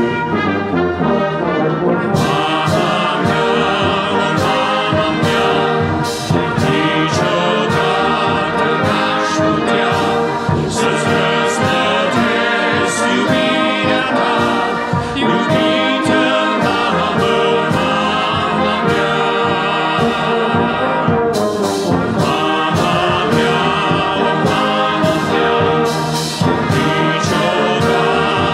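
Church brass band of trumpets, trombones, tubas and sousaphone with flutes playing a hymn in full harmony at a steady beat, with sharp percussion strokes keeping time.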